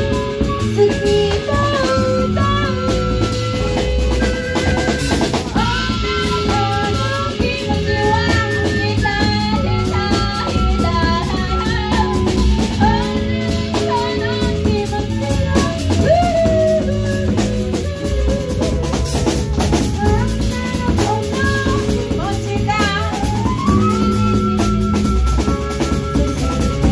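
A live band playing, with a drum kit (bass drum, snare and rimshots) keeping the beat under a melodic lead line that slides between notes.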